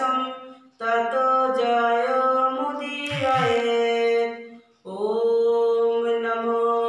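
A woman chanting Sanskrit devotional verses in a slow, sung recitation with long held notes, breaking off briefly twice to breathe.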